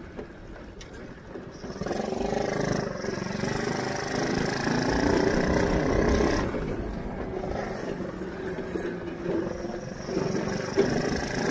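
Shifter go-kart engine running as the kart drives along, its note rising and climbing in level about a second and a half in, then dropping back to a steadier, lower note just past the middle.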